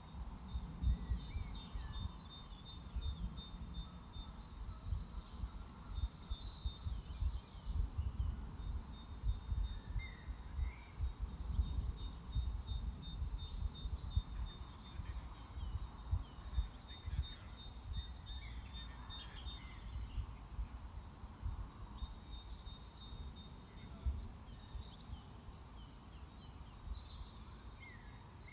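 Outdoor background: an uneven low rumble of wind on the microphone, with scattered short bird chirps and a faint steady high thin tone.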